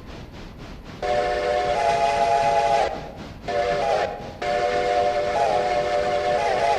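Train whistle sounding a chord of several notes in three blasts: a long one, a shorter one, then a long one with small shifts in pitch. Under it runs the train's steady rhythmic beat of about four a second.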